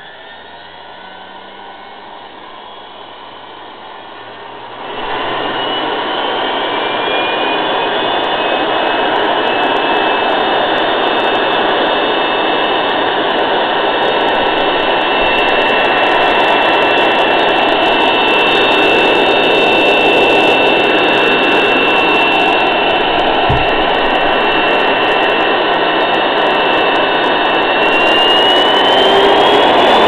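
Bare vacuum cleaner motor run on 230 V through a soft-start: a faint rising whine as it spins up, then about five seconds in it jumps suddenly louder into a steady high whine with a rush of air. Near the end the whine climbs in pitch and grows louder again.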